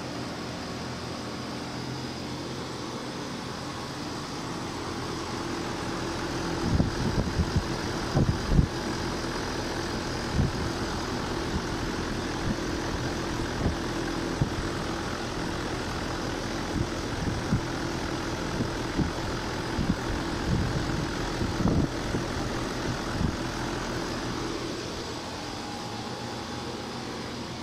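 Outdoor air conditioner unit running: a steady fan and compressor hum. It gets louder from about six seconds in until near the end, with scattered low thumps along the way.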